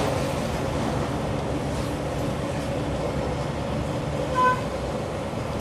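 Steady engine and road noise of a moving truck, with one short pitched beep about four and a half seconds in.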